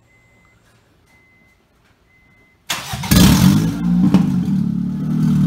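A faint chime repeating about once a second, then about three seconds in the 2005 Honda Civic EX's 1.7-litre four-cylinder cranks briefly and catches, flaring loudly before settling into a steady idle. It is running on open headers, with no downpipe, catalytic converter or muffler attached, so the exhaust comes straight out of the header collector.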